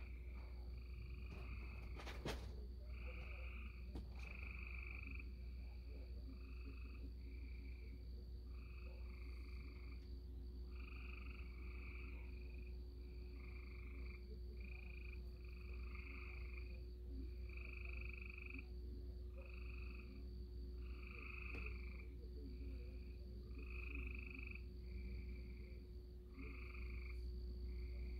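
Frogs calling in a steady chorus of short croaks, about one a second, over a steady low hum, with a single sharp click about two seconds in.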